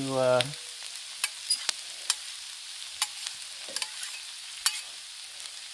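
Smoked sausage and diced vegetables sizzling on a hot Blackstone steel flat-top griddle, a steady hiss broken by about eight irregular sharp clicks and pops.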